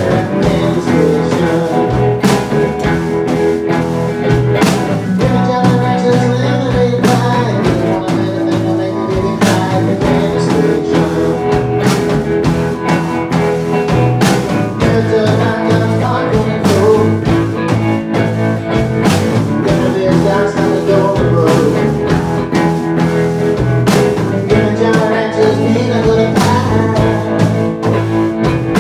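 Live roots rock trio playing: electric guitar and electric bass over a drum kit, with frequent cymbal and drum hits.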